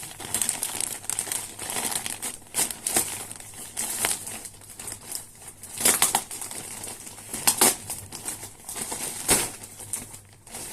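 Packaging crinkling and rustling as a parcel is unwrapped by hand, in irregular crackles with a few louder, sharper ones near the middle and toward the end.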